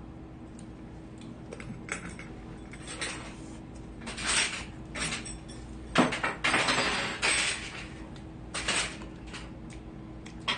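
Spoons and chopsticks clinking and scraping against bowls during a meal. The sounds come as a scatter of short, irregular clatters over several seconds, the loudest and busiest about six to seven seconds in.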